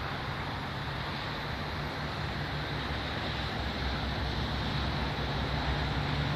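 Strong wind blowing over the microphone: a steady rushing with an uneven low rumble beneath it.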